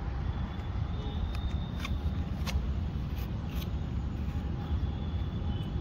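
A hoof pick scraping and brushing packed dirt out of a horse's hoof, a few short scrapes around the middle, over a steady low rumble.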